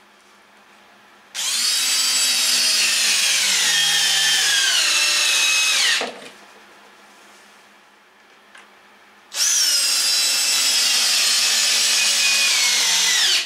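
Power drill driving two wood screws into a trailer roof spar, one after the other, each run lasting about four to five seconds. Its motor whine falls in pitch through each run and drops away as the screw seats.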